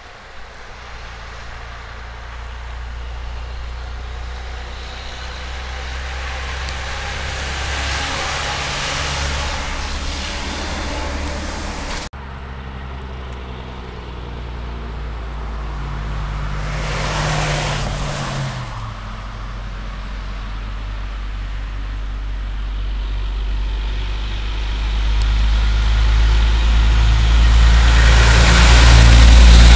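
Heavy diesel trucks driving past on the road, a loaded log truck and then an oversize-load tractor-trailer. Their engine drone swells as each approaches and is loudest near the end, as the last truck passes close by.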